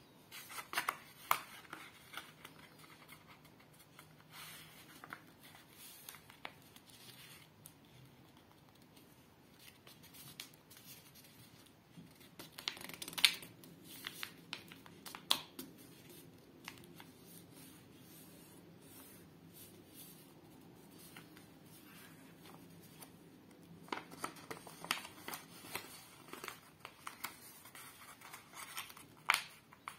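A sheet of paper being folded and creased by hand: crackles, clicks and scrapes as fingers press down folds and slide along the sheet. The handling comes in spells, busiest near the start, in the middle and over the last several seconds, with a quieter stretch between.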